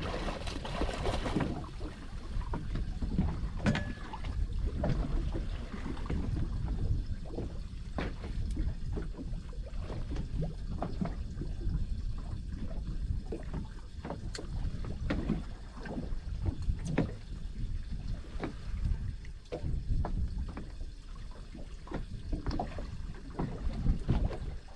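Wind on the microphone and water slapping against the hull of a small fishing boat, with scattered short clicks and knocks throughout.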